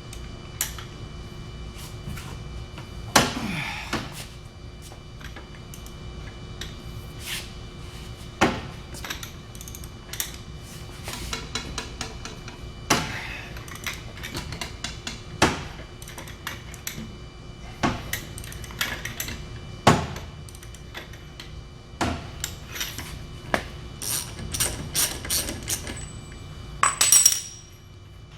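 Irregular metallic clicks and clanks from a 1/2-inch drive ratchet on a long cheater-pipe extension being worked under heavy load on a semi-truck lug nut, including the ratchet's pawl clicking. Near the end comes a louder clang of metal with a ringing tail.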